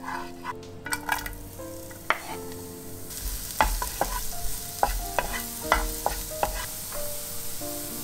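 Butter frying in a nonstick pan, stirred with a wooden spatula. About three seconds in, chopped red onion is added and a sizzle starts, with the spatula clicking and scraping against the pan as it stirs.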